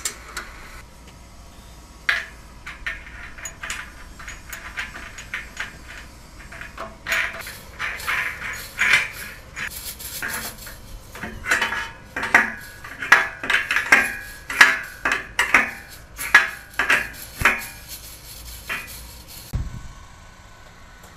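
Irregular metal-on-metal clinking and clanking from the steel fittings of a tilt-down pole being worked on, each knock ringing briefly. The clinks grow busier and louder about halfway through, and a single low thump comes near the end.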